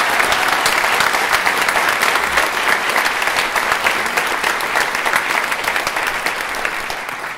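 Audience applauding: dense, loud clapping from many hands that slowly dies down toward the end.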